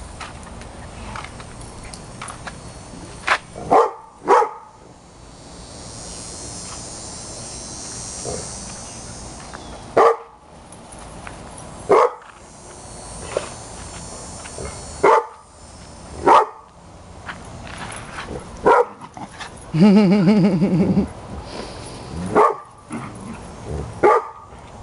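Small dogs barking in short, sharp single barks every couple of seconds as they play, with a quick pair of barks a few seconds in and one longer, wavering cry about twenty seconds in.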